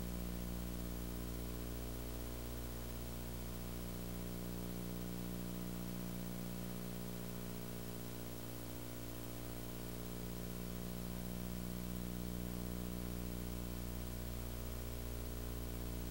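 Steady low electrical hum with several overtones over a light, even hiss: the background noise of a VHS tape playing a silent stretch.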